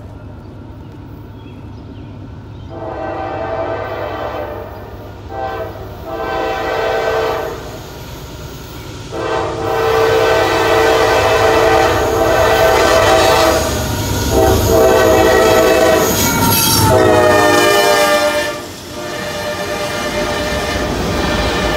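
Lead locomotive of a Norfolk Southern freight train, an AC44C6M diesel, sounding its horn in a series of blasts for a grade crossing as it approaches, each louder than the last. The locomotives' engines and wheels then rumble past near the end.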